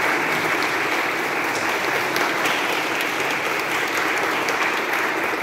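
Audience applauding steadily at the end of a sung piece.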